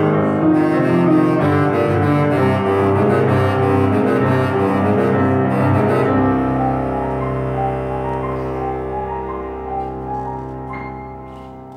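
Bass clarinet and Steinway grand piano playing together: a moving melody over piano chords, then from about six seconds in a long low held note over a sustained piano chord, slowly fading.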